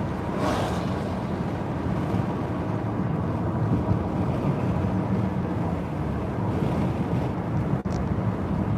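Steady road and engine rumble inside a moving car's cabin, with a brief dropout shortly before the end.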